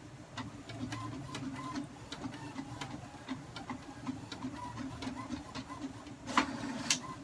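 HP DeskJet GT 5810 inkjet printer printing a test page: a steady mechanical running sound with many short clicks as the print head carriage works. Louder strokes come near the end as the sheet is fed out.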